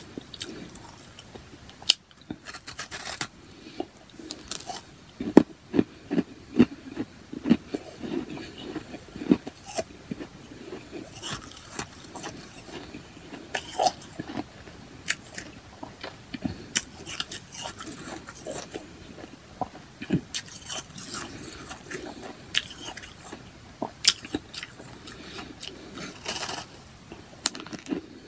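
A person biting into and chewing chunks of powdery ice: irregular sharp crunches, often in quick clusters, every second or two.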